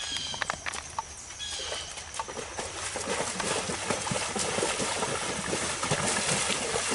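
Belgian draft horse wading through a shallow creek under a rider. A few sharp hoof knocks at the start give way to uneven splashing of hooves in the water, which grows louder as the horse comes closer.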